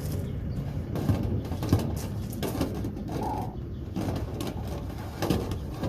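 Knocks, clicks and scraping from a dryer-vent cleaning brush rod being pushed through the vent duct, over a low rumble. A single short bird call sounds about three seconds in.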